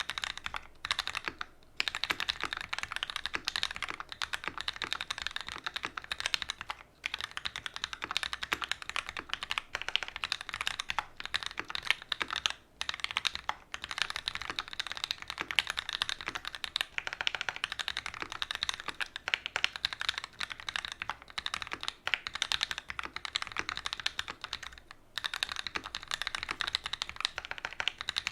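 Continuous fast typing on a custom mechanical keyboard with Gateron Ink Black linear switches in an aluminium plate and GMK doubleshot ABS keycaps, a steady stream of keystrokes with a few short pauses.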